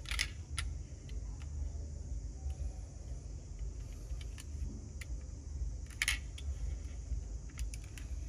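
Small clicks and rattles of a toy pickup truck being turned over in the hands, with two sharper clicks, one at the start and one about six seconds in. A low steady rumble runs underneath.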